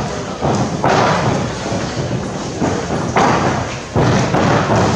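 Fencers' footwork on a wooden floor during a sabre bout: a few heavy thuds and stamps of feet as they step and lunge.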